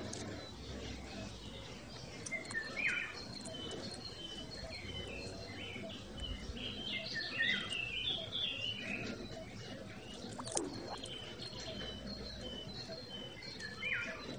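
Small birds chirping: short high chirps repeated throughout, with a livelier run of song about halfway through, over a steady outdoor background hiss.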